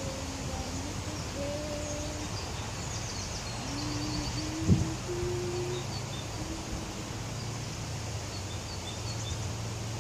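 Small birds chirping and twittering over a steady low hum, with faint long held notes underneath. A single sharp knock sounds a little before halfway.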